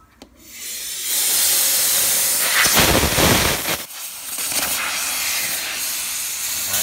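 Compressed air hissing out of an Iwata OFP-06 portable reciprocating air compressor as its air is released. The hiss builds over the first second, dips briefly about four seconds in, then carries on.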